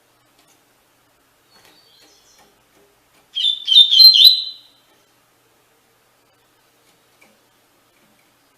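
Double-collared seedeater (coleiro) singing one short phrase of its 'tuí-tuí' song: a quick run of high notes lasting about a second and a half, starting about three seconds in, after a few faint soft notes.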